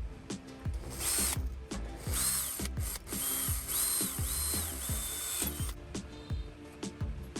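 A handheld power tool's electric motor whirring in several short runs, each speeding up, holding and slowing down, over background music with plucked notes.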